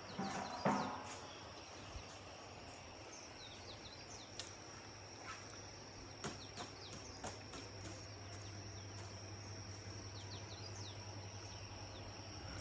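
Faint outdoor ambience: insects trilling steadily on one high note, with many short chirps from birds or insects over it. A brief louder pitched call sounds about half a second in, and a low hum comes up in the second half.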